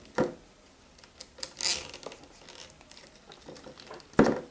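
Handling noise from small plastic lamp parts and wires being worked by hand: a few short clicks and rustling scrapes, the loudest one near the end.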